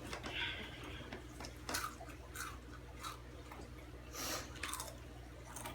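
Close-up crunching and chewing of Takis, spicy rolled corn tortilla chips, in the mouth: a run of irregular sharp crunches, the strongest about two seconds in and again near four seconds.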